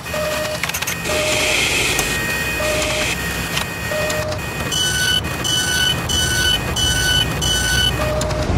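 Machine sound effects for an animated end card: a steady mechanical rumble with a few short beeps, then from about halfway a run of higher beeps about twice a second.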